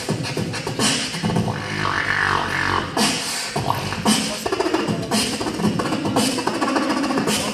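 Human beatboxing into a stage microphone and PA: a rhythmic beat of deep bass kicks with sharp snare hits about once a second, and a held, pitched vocal sound near two seconds in.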